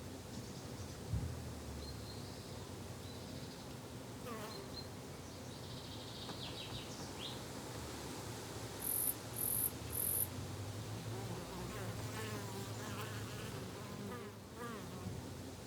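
Summer garden ambience: a fly or bee buzzing close by with a steady, wavering low drone, and scattered bird chirps. Three short, loud, high-pitched chirps come about nine to ten seconds in.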